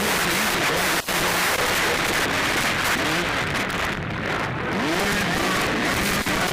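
Motocross bike engines revving, their pitch rising and falling, buried under a loud, rough noise on the microphone.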